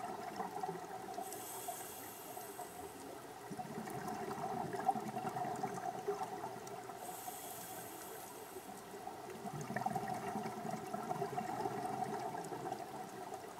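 Scuba diver breathing heard underwater: a hissing inhale through the regulator followed by a longer bubbling exhale, two full breaths.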